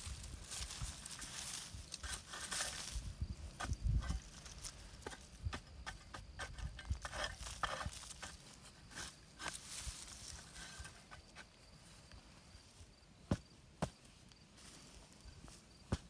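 Digging and rustling in garden soil and sweet potato vines, with many scattered clicks and a dull thump about four seconds in. The activity is busy in the first half and thins out to a few separate clicks later.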